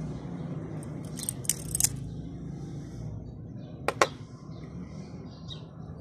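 Metal clicks of a steel butterfly knife (balisong) being handled: a quick run of clicks about a second in, then two sharp clicks close together about four seconds in, over a steady low hum.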